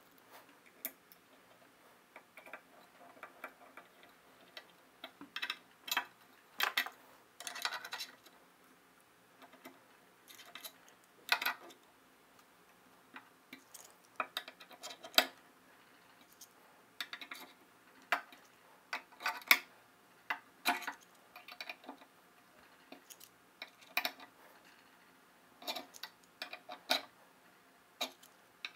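Irregular small clicks and taps of screws and small metal hardware being handled and fitted into a 3D printer's motor mount on an aluminium extrusion frame.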